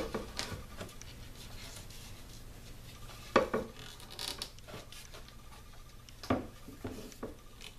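Hands wrapping paracord around a leather-wrapped wooden bow handle: soft rubbing and handling noise, with two light knocks about three and a half seconds in and again about six seconds in.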